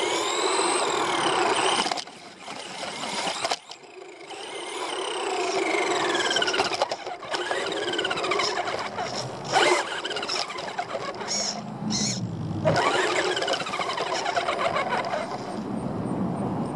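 RC buggy's motor and gears whining, the pitch sweeping up and down again and again as the throttle is worked. The whine drops away for a couple of seconds about two seconds in, and near the end it settles quieter as the car comes to rest.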